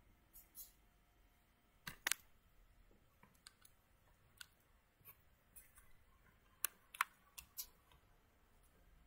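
Scattered light clicks and taps close to the microphone, from the recording device being handled. The loudest are a close pair about two seconds in and a quick run of clicks about seven seconds in.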